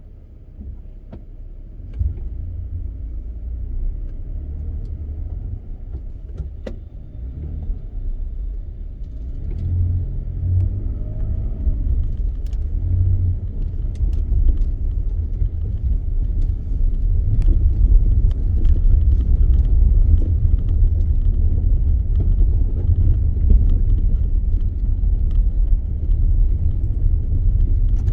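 Car driving on a snowy road: a steady low road-and-engine rumble that grows louder over the first half as the car picks up speed, with scattered faint ticks.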